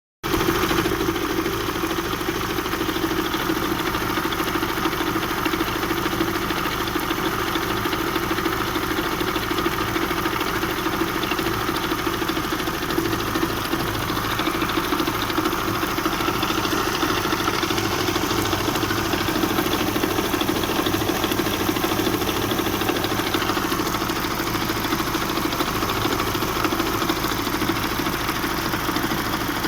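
Engine idling steadily with a persistent knock.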